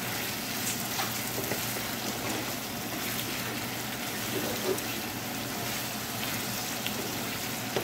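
Chicken pieces sizzling in ghee and chili-spice paste in a frying pan, a steady hiss. A wooden spatula stirring through them adds a few light scrapes and knocks.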